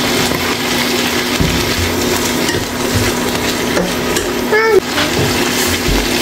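Food sizzling in a frying pan as it is stirred, with a few soft knocks of the utensil against the pan.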